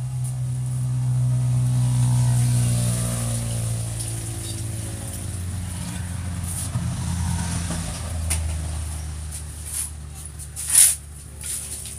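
An engine running steadily, its pitch slowly falling over several seconds. Near the end comes a sharp, loud strike, a metal shovel hitting the concrete floor while mortar is mixed.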